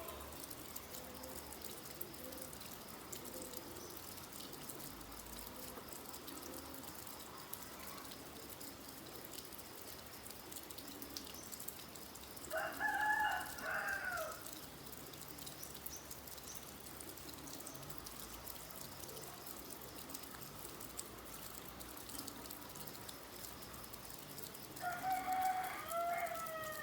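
A rooster crowing twice, each crow about two seconds long and about twelve seconds apart, over a steady hiss of rain.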